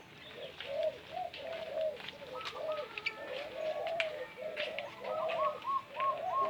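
Many doves cooing at once, their rounded coos overlapping continuously, with a quicker run of higher coos in the second half, and small birds chirping sharply over them.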